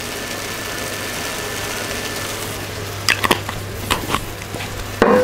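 Diced apples and onions sizzling in a frying pan over a steady low hum. From about three seconds in come several clicks and knocks, and a louder ringing clink near the end.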